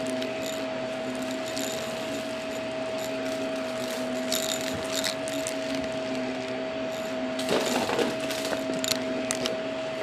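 Vacuum cleaner running over carpet with a steady motor whine, and several short crackles in the second half as small bits of debris are sucked up through the floor head.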